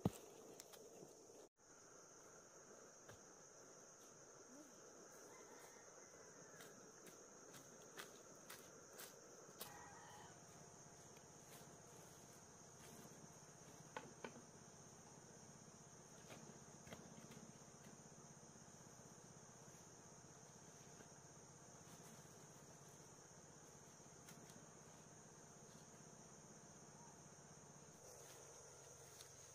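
Faint, steady high-pitched chirring of insects, with a few soft clicks scattered through it.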